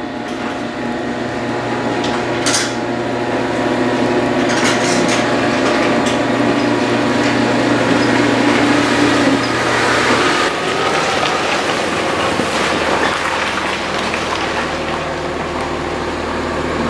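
Volkswagen Passat wagon's engine running as the car creeps forward onto a heavy plastic garage floor mat, its note dropping lower about ten seconds in. Over it come scattered crackles and clicks of the mat's sheeting creasing under the tyres.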